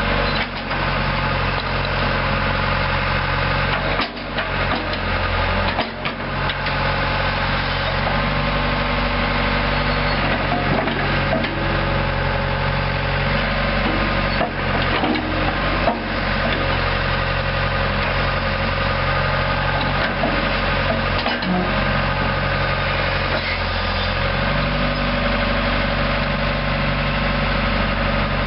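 Four-cylinder John Deere diesel engine of a 1996 John Deere 190E excavator running steadily, with a few brief dips and a couple of shifts in its note.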